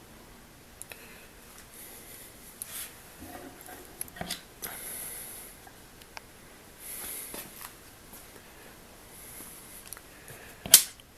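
Scattered small clicks and short rustles, with one sharp knock near the end.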